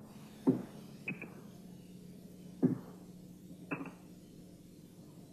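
Steady low hum of an old film soundtrack, with four short knocks scattered through it, the loudest about half a second in.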